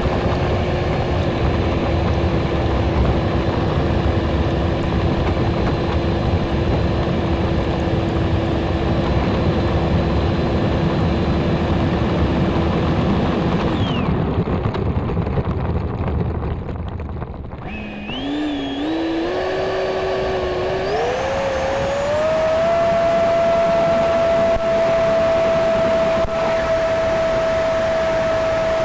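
Electric ducted-fan motor of a Freewing F-35 RC jet running with a steady whine over rumbling airflow or rolling noise. About 14 s in, the whine and the noise fall away. From about 18 s the fan spools back up in steps to a higher, steady whine.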